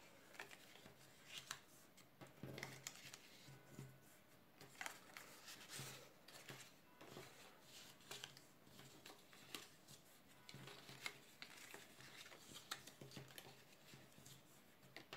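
Faint rustling and crackling of cardstock as a paper box blank is folded and creased by hand along its scored lines, in short irregular bursts.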